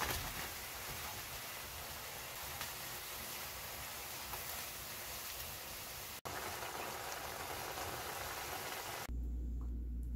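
Cream sauce simmering and sizzling in a frying pan as pan-fried potato gnocchi are stirred in with chopsticks, a steady crackling hiss. About nine seconds in it cuts off suddenly and a steady low hum takes over.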